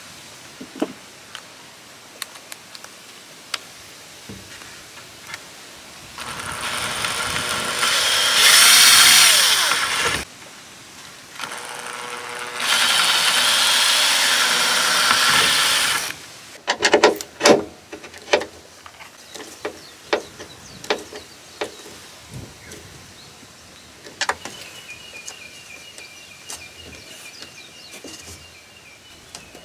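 Cordless drill boring into a wooden board, widening a hole with a larger bit to fit a screw. Two runs of about four seconds, the first speeding up partway, followed by a quick cluster of knocks.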